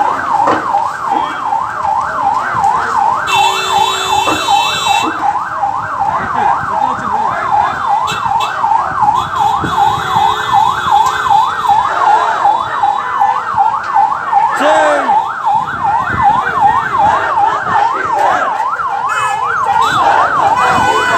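Electronic emergency-vehicle siren on a fast yelp setting, its pitch sweeping up and down about three times a second without a break. A steady horn-like tone sounds over it for a second or two about three seconds in.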